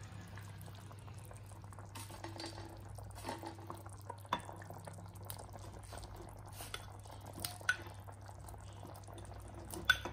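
Watery spinach puree bubbling at a boil in a wide pan, over a low steady hum, with a few light sharp clicks, the last as paneer cubes are dropped in near the end.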